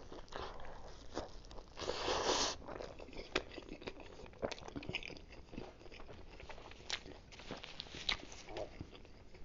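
Close-up biting and chewing of a Philly cheesesteak on a toasted roll: soft wet mouth clicks and small crunches, with a louder crunchy stretch about two seconds in.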